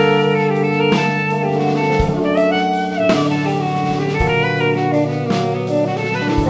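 Small jazz band playing: tenor saxophone, trombone and trumpet over Rhodes electric piano and drum kit, with held chords, a moving melody line and drum strokes about once a second.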